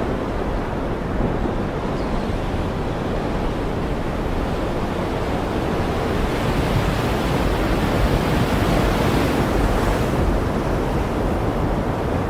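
Ocean surf: a steady rush of waves washing in, swelling a little in the middle.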